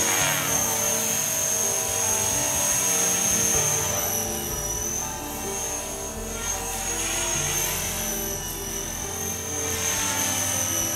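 Blade 450 3D electric RC helicopter in flight: a high, steady whine from its motor and rotor that wavers slightly in pitch as it manoeuvres. Background music plays under it.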